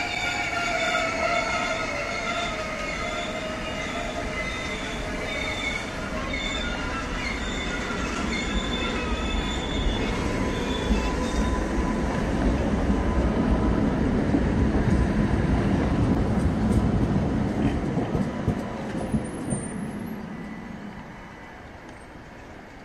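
Loaded open freight wagons rolling past on the rails. High steel-on-steel wheel squeal rings over the rumble for about the first half, then dies away. The low rumble swells a little after the middle and fades near the end.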